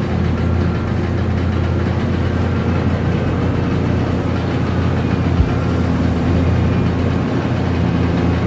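Excavator's diesel engine running steadily, with a single knock about five and a half seconds in.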